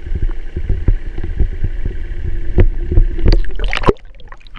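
Water sloshing and knocking against a camera held just under the lake surface: a run of muffled thumps and gurgles, then about four seconds in it suddenly drops to a quieter underwater hush.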